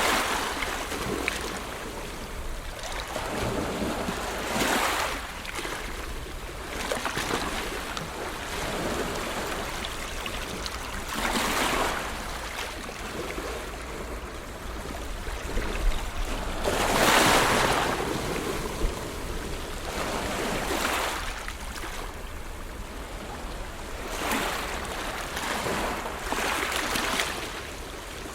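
Ocean waves breaking and washing on the shore, a swell of surf every five or six seconds, the loudest about seventeen seconds in, with a low rumble of wind on the microphone underneath.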